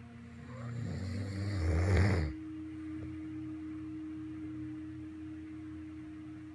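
A sleeping pet snoring: one long snore that swells for about a second and a half and then cuts off sharply.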